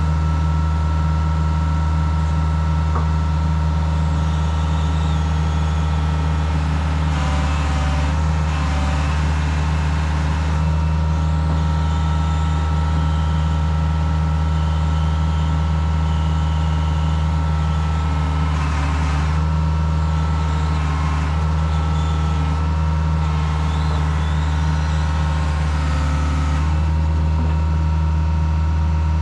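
Diesel engine of a heavy earthmoving machine running loud and steady at a constant speed, close up. A couple of stretches of added noise from the machine working come about seven and nineteen seconds in.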